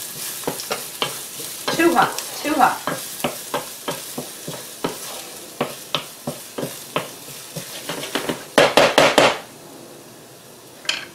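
Garlic sizzling in a frying pan while a utensil stirs and scrapes it, giving a steady run of short clicks over the sizzle. About eight and a half seconds in comes a quick burst of louder clattering, after which only a quieter sizzle is left.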